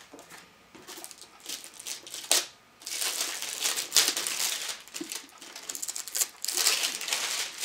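Clear plastic wrapping crinkling and rustling as a book is pulled out of it by hand, with a few light handling clicks. It starts quietly and becomes loud, continuous crinkling about three seconds in.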